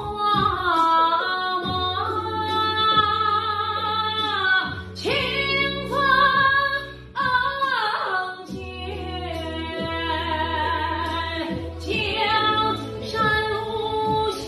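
A woman singing unaccompanied, in long sustained phrases that glide in pitch.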